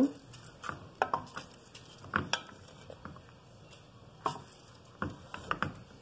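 Wooden spoon knocking and scraping against a metal pressure cooker pot while stirring raw cubes of seasoned pork fat: a handful of scattered short knocks.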